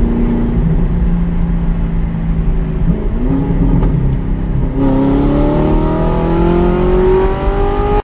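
Audi R8's engine heard from inside the cabin while driving: a steady engine note that drops in pitch just after the start, then rises steadily over the last three seconds as the revs climb.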